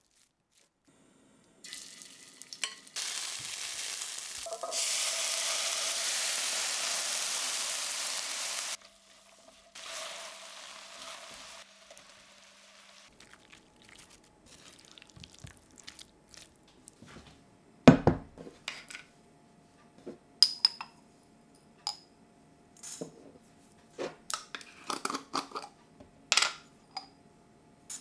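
Food sizzling as it fries in a pan for several seconds. After a quieter stretch come scattered clinks and taps of metal utensils against pans and dishes, the first and loudest a sharp knock.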